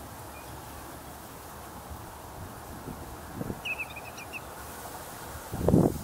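Outdoor background hiss with a brief quick run of high bird chirps, about seven notes, around four seconds in. A low muffled bump, the loudest sound, comes near the end.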